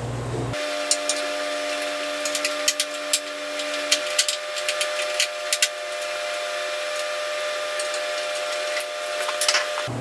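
A Phillips screwdriver backing out the sheet-metal panel screws on a potter's wheel frame: a run of short metallic clicks and scrapes, thick in the first half and again near the end, over a steady high-pitched whistling hum.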